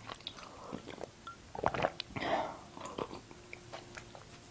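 Close-miked mouth sounds of someone sipping tea from a mug and chewing sweets: soft, scattered wet clicks and smacks, with a short breathy sip or swallow about two seconds in.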